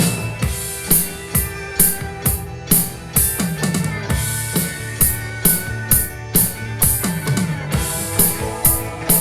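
Rock drum kit coming in with a loud hit, then playing a steady beat of about two strong strokes a second, with bass drum, snare and toms. Underneath is a recorded band song with sustained instrument notes.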